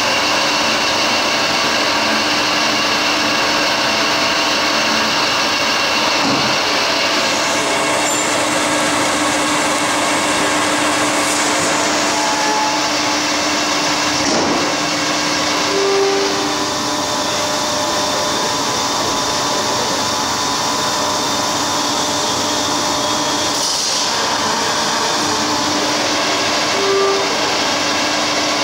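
Kearns Richards NC125 CNC horizontal borer running under power: a steady, loud machine noise with several steady tones. The hiss changes character a few times, and two short tones sound about midway and near the end.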